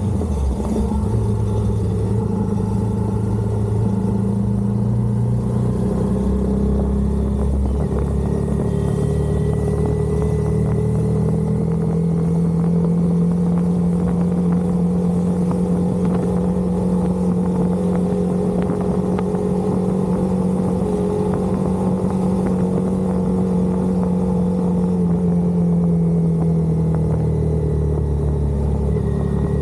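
Honda CBR250R's single-cylinder engine running at road speed under a riding motorcycle. The note holds steady for long stretches and shifts in pitch a few seconds in and again near the end, as the throttle or gear changes.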